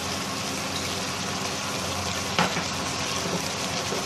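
Spicy catfish and Thai eggplant stir-fry sizzling in a wok, an even hiss over a steady low hum, with one short knock a little past halfway.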